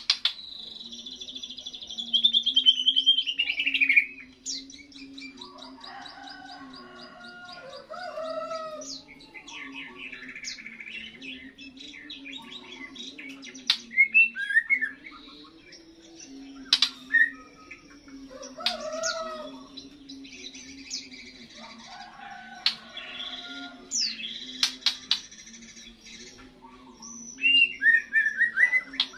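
White-rumped shama (murai batu) singing in its first song after the moult: varied phrases of clear whistles, falling glides and quick trills, broken by pauses. The loudest phrase is a long falling whistle a few seconds in, and a few sharp clicks fall between the phrases.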